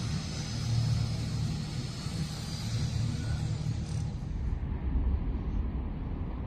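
Steady low engine rumble, with a high hiss above it that fades out about four seconds in.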